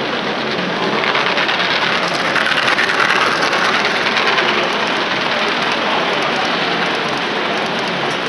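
Large-scale model train rolling past close by: a dense, rain-like clatter of its wheels on the track, loudest about two to three seconds in as the locomotive and coaches go by.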